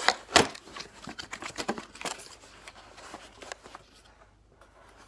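Hands handling a dropper seat post's packaging and parts: two sharp knocks in the first half second, then scattered light rustles and clicks that die away about four seconds in.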